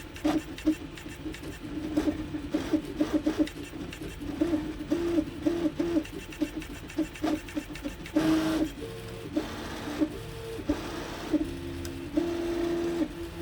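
3D printer's Nema 17 stepper motors, run by TMC2209 drivers in stealthChop, humming through print moves: a tone that jumps between a few pitches every second or so as the moves change, with sharp ticks in between. This is the strange resonance noise these drivers make at the printer's base speed, which goes quiet when the speed is set below 60% or above 150%.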